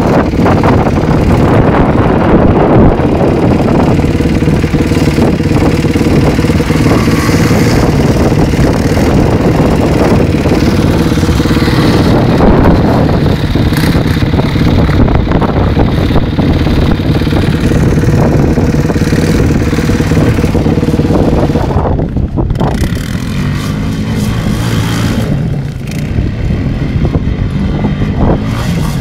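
Quad bike (ATV) engine running as it rides over gravel, loud and steady while close by. It gets quieter and its pitch shifts for the last several seconds as the quad moves away.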